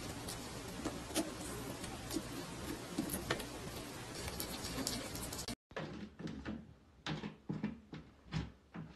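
A hamster nibbling a long green bean, small crisp clicks of chewing in quick succession. After a sudden break about five and a half seconds in, a run of separate light knocks and taps from a cat pushing through the swinging plastic flap door of a covered litter box.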